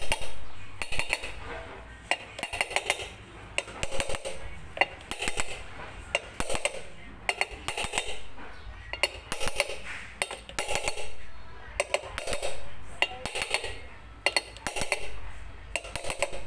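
A hammer tapping on the metal side cover of an electric-bike hub motor, seating it evenly into the motor housing. It gives a long series of sharp metallic taps with a ringing tail, irregularly spaced at about one to two a second.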